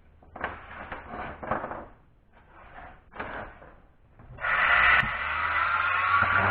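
Handling knocks, then about four and a half seconds in the repaired palm sander's electric motor starts and runs steadily, winding up briefly at first. After its bearing repair it runs freely again.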